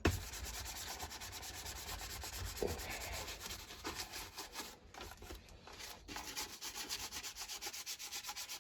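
Rapid, even back-and-forth scrubbing on the plastic fuel tank of a petrol hedge trimmer, working white spirit into old oil and grime.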